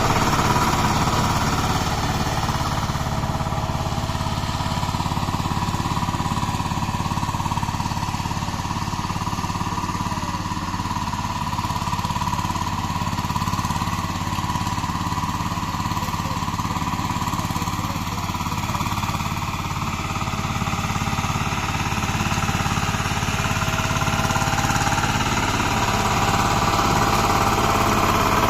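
Power tiller engine running steadily with a low, knocking beat while it ploughs a field.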